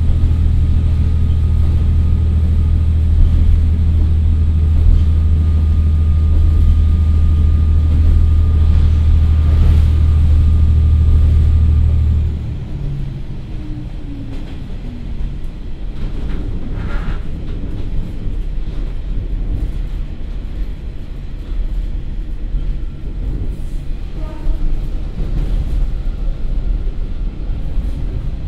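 Komatsu SA6D125HE-1 diesel engine of a KiHa 40 railcar, heard from inside the car, running loud and steady under power with a faint steady whine above it. About twelve seconds in the engine note cuts off as the power is shut off, leaving a lower rumble of wheels on rail with occasional light clicks while the car rolls on.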